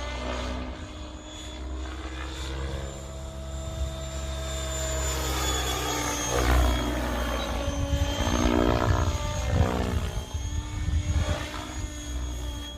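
Electric RC helicopter, a Mikado Logo 690, in flight: its rotor and motor whine swoops up and down in pitch as it manoeuvres and passes, loudest about midway. The sound is soft, with none of the high-pitched rasp of a glow-engine model.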